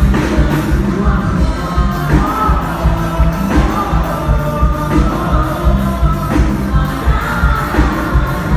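Quadrilha music with a steady, driving beat and singing.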